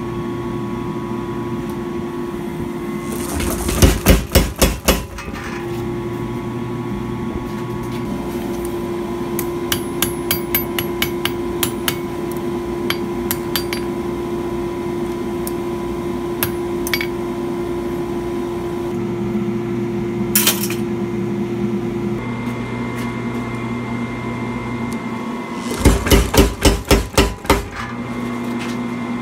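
Power hammer striking a fullering tool on hot stainless-steel skewer stock: two quick runs of about eight heavy blows, a few seconds in and again near the end. Between them come lighter, scattered hammer taps on metal, over a steady machine hum.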